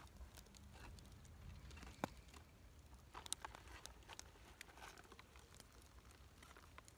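Near silence with faint, scattered small clicks and taps, one sharper click about two seconds in.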